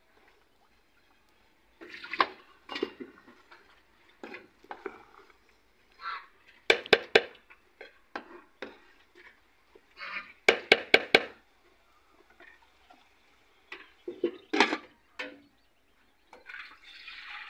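A wooden spoon stirs and scrapes potatoes and cauliflower in an aluminium pot, with two quick runs of sharp knocks of the spoon against the pot and another knock later. Near the end the metal lid is set on the pot.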